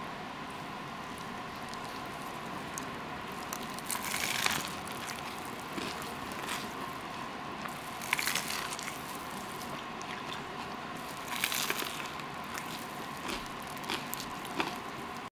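A toasted sourdough steak sandwich dripping with creamy mushroom sauce being squeezed and pulled apart by hand. There are three squishy crunches of the toasted bread a few seconds apart, then lighter crackles near the end, over a steady background hiss.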